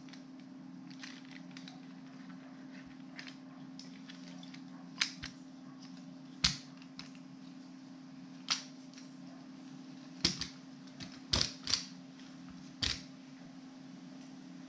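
Plastic pistol-grip mini tripod being handled and adjusted: irregular sharp clicks and knocks from its joints and legs, spaced out at first and coming in a quick cluster near the end, over a steady low hum.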